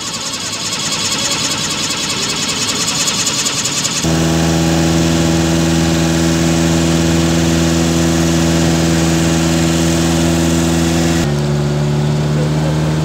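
Motorboat engine running steadily while the boat is under way: a fast rattling chug for the first few seconds, then a steady droning hum with a clear pitch. The sound shifts abruptly about four seconds in and again near the end.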